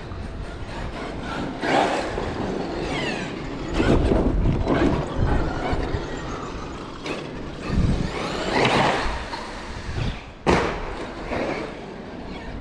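Traxxas X-Maxx electric RC monster truck being driven hard: its motor whine slides up and down in pitch over the noise of the running truck, with several heavy thumps. The hardest is a sharp bang about ten and a half seconds in, typical of the truck landing from a jump.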